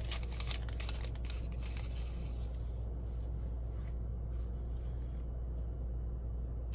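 Light rustling and handling of parchment paper in the first couple of seconds, over a steady low hum.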